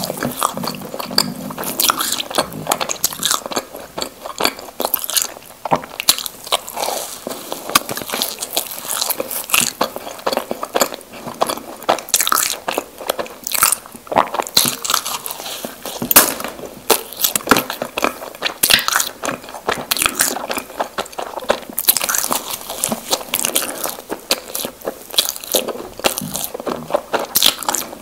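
Close-miked eating of Krispy Kreme doughnuts: bites and steady chewing with many sharp, wet mouth clicks, going on throughout.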